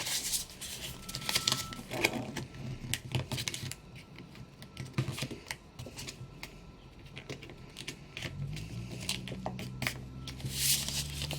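A square of origami paper being folded and creased by hand, with irregular crinkles, rustles and small taps. A low steady hum comes in about eight seconds in.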